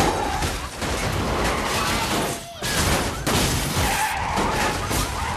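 Film sound effects of a city being torn apart in an earthquake: a dense, loud mass of rumbling, crashing and shattering debris, with cars skidding through it. The din briefly drops about two and a half seconds in, then swells again.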